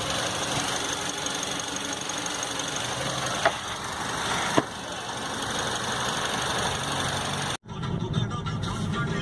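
Maruti Suzuki SX4's freshly overhauled engine idling steadily, which the mechanic calls completely smooth, with no unusual noise from the engine; two short clicks sound about three and a half and four and a half seconds in. Near the end it cuts off abruptly and music begins.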